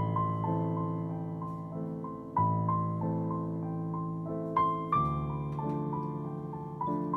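Background piano music: slow chords struck about every two and a half seconds, fading between strikes, with a simple melody of single notes above them.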